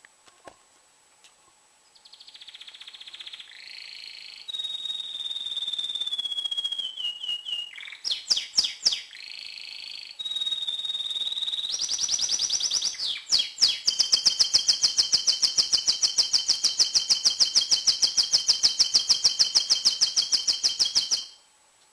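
Domestic canary, a male in breeding condition, singing a full song: varied trills and whistled rolling phrases beginning about two seconds in, building to a long, fast trill, the loudest part, that stops suddenly near the end.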